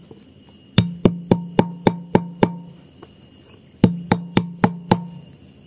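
A bottle pounding oil palm fruitlets to crush them: two runs of quick blows, about four a second, each with a short low ring.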